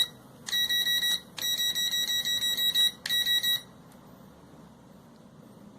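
Electronic beeping from an SG906 Pro drone as it is powered on for testing. A high, rapidly pulsing tone comes in four groups, the third the longest, and stops about three and a half seconds in.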